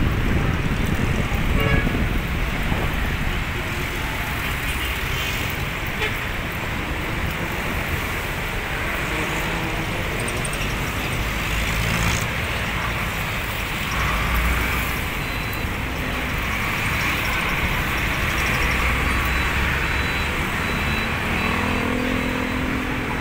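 Busy road traffic: cars and jeepneys passing, a steady rumble of engines with tyre noise.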